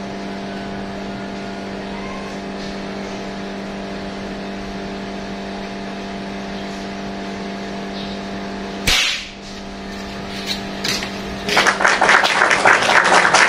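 A single airgun shot about nine seconds in, cutting through a steady machine hum that stops with it. From about eleven and a half seconds on comes a loud, dense patter like applause.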